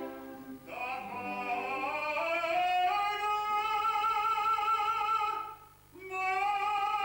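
Male opera singer in full voice, with vibrato: a phrase rising over the first few seconds into a long held high note, a short break for breath about five and a half seconds in, then another held note.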